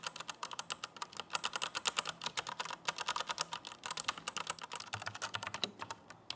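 Typing on a Digital Alliance Meca 8X Plus mechanical keyboard with Otemu Brown tactile switches: a fast, continuous patter of key clicks, many a second, that thins out briefly near the end. The keyboard's rubber gasket mounting keeps the keystrokes soft rather than clacky.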